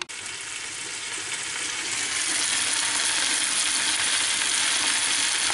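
Chopped onion sizzling in hot oil in a frying pan. The sizzle grows louder over the first couple of seconds, then holds steady.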